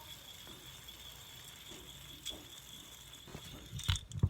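Quiet, steady background hiss, then a few soft knocks and bumps near the end as the fidget spinner is handled.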